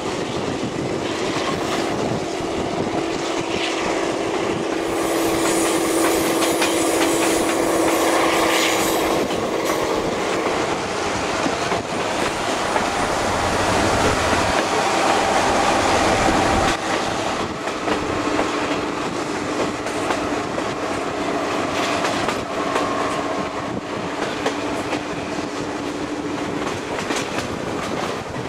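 Chihuahua al Pacífico (Chepe) passenger train running along the track, its wheels clacking over the rail joints. A steady low whine sounds through the first third and returns later.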